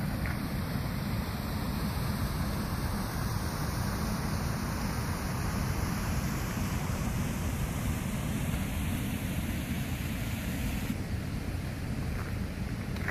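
Steady rushing of water spilling through a small concrete weir into a stream, with wind rumbling on the microphone.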